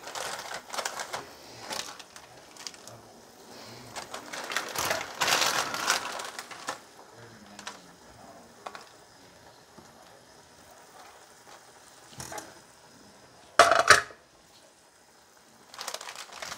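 Plastic and foil instant-noodle packet wrappers and a seasoning sachet crinkling and rustling as they are handled, in scattered crackles with a longer stretch of rustling about five seconds in. A short loud clatter comes near the end.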